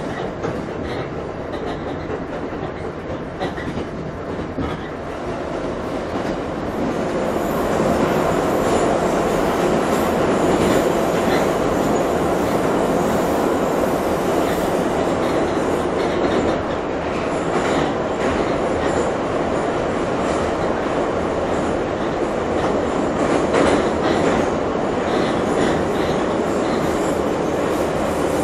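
Moscow Metro train running between stations, heard from inside the carriage: a steady rumble of wheels on rails, growing louder about six to eight seconds in, with the click of rail joints.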